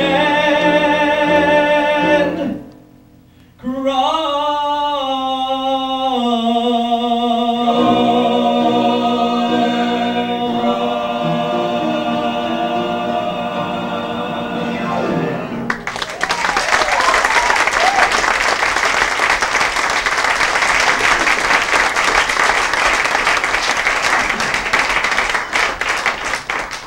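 A male vocal quartet sings the end of a ballad in harmony. There is a short break about two and a half seconds in, then a long held final chord that stops about fifteen seconds in. Audience applause follows for the rest.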